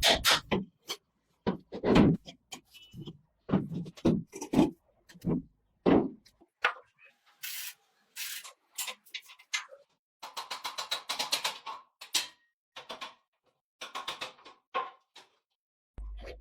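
Hand tools working on metal motorcycle parts during disassembly: a series of separate knocks and clanks, then a quicker run of rapid clicking about ten seconds in.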